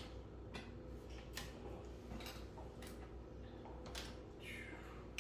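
Faint clicks of small plastic Lego pieces being handled and set down during sorting, a few light clicks spaced about a second apart.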